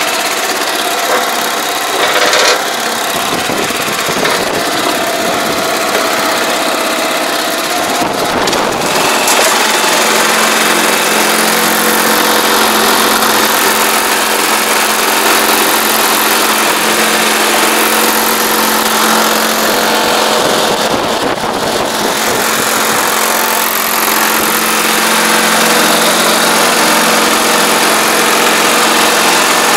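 Small engine of a crawler-tracked pesticide sprayer running steadily as the machine travels.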